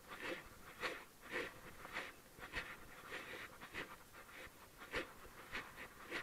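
A person walking and breathing hard close to the microphone, in a steady rhythm of about two breaths a second in time with the steps.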